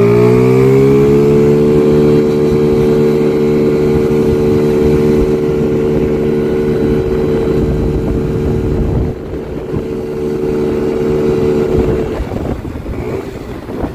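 50cc Chinese GY6-type scooter engine at full throttle. Its pitch climbs over the first second or so, then holds steady and high as the CVT, fitted with 6.5-gram variator rollers, keeps the revs up while the scooter pulls hard. The revs fall away near the end. Wind noise on the microphone.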